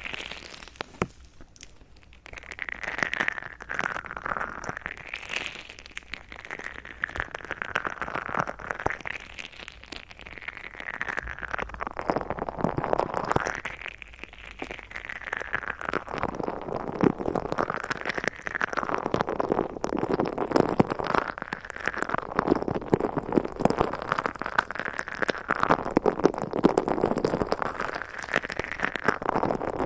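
Crinkly clear plastic rubbed and squeezed against a pair of microphones, giving a dense crackling that swells and fades in slow sweeps every two to three seconds.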